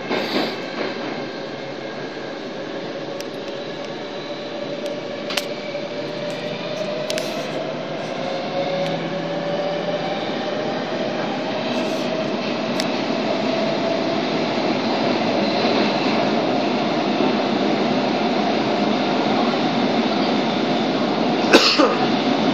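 Stockholm Metro C14 subway car running, heard from inside: a steady rumble with a whine that slowly rises in pitch while the noise grows louder as the train gathers speed. A couple of sharp clicks stand out, the loudest near the end.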